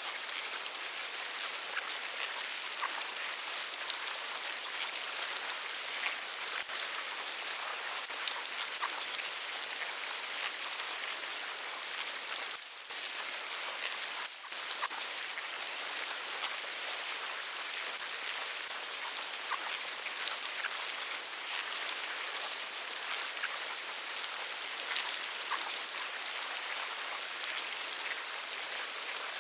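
Insect larvae making a dense, continuous fine crackle of countless tiny clicks, much like light rain pattering. The crackle dips briefly twice, about 13 and 14 seconds in.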